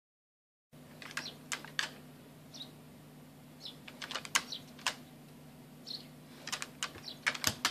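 Shiba Inu chewing a senbei rice cracker: irregular sharp crunches and mouth smacks in quick clusters, over a steady low hum.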